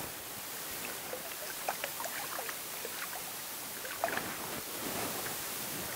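Shallow trout creek running, a steady rushing hiss, with small water splashes and plinks around the wading angler, the sharpest about four seconds in as his hand reaches into the water.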